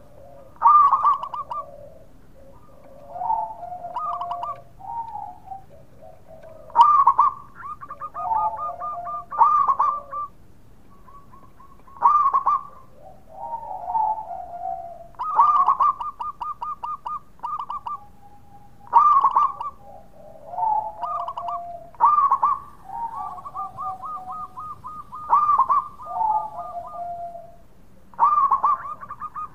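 Zebra dove (perkutut) cooing its song over and over: each phrase opens with a loud note and runs into a fast stuttering string of short coos, with lower warbling coos between phrases, a new phrase about every three seconds.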